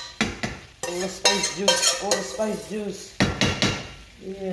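Metal utensil scraping and knocking against a stainless steel saucepan, repeated sharp taps, as seasoning is scraped out, over chicken wings sizzling in oil in a frying pan.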